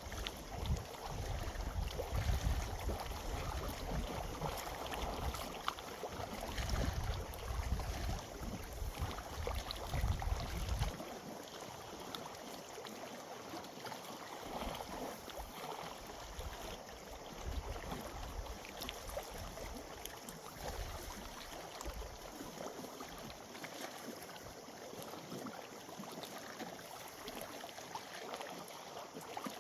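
Wind gusting on the microphone in irregular low buffets that die away about eleven seconds in, leaving a faint steady hiss of outdoor water ambience.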